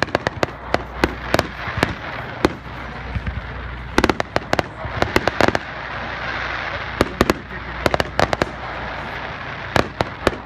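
Phantom Fireworks display shells bursting overhead in irregular succession: sharp bangs and quick runs of crackling reports, with a stretch of hiss around six to seven seconds in.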